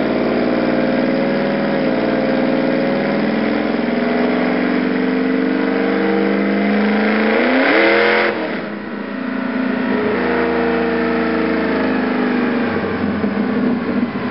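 Ford F-150 SVT Lightning pickup's supercharged V8 making a full-throttle pull on a chassis dyno. It climbs steadily, then revs up quickly to a peak about eight seconds in, cuts off suddenly and runs on lower as the truck coasts down on the rollers.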